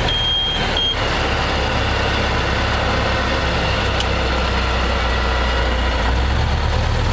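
Car engine running low and steady with road noise, heard from inside the cabin, as the car slows in first gear under braking. A series of short, high, evenly pitched beeps sounds during the first second.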